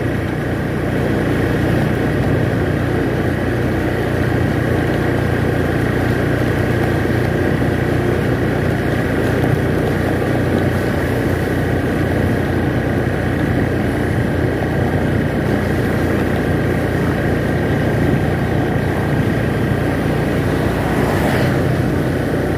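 Motorcycle engine running steadily while it is ridden at an even speed.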